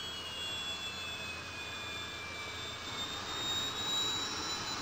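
Aircraft turbine engine whine over a steady rush. A high tone slowly falls, and another climbs near the end.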